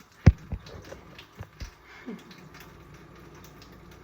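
A few sharp clicks and knocks of small hard objects being handled, the loudest about a third of a second in, with a brief falling squeak about two seconds in.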